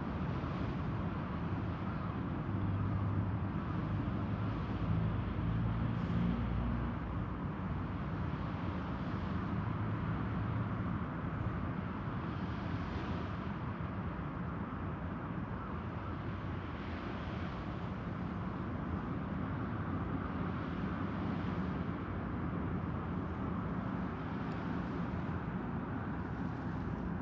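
Steady outdoor background noise, a low rumble with a hiss over it that swells faintly every few seconds.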